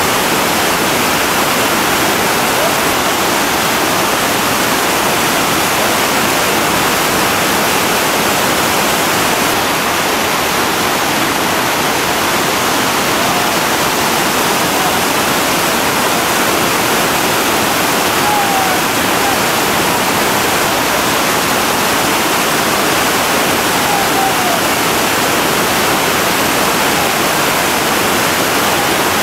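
Whitewater rapid on the Upper Gauley River, big river water pouring through and over boulders: a loud, steady, unbroken rush of water.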